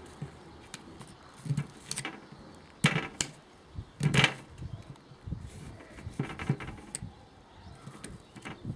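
A multi-tool knife blade working in the eye of a coconut, with the coconut being handled: a string of sharp clicks and knocks, the loudest about three and four seconds in.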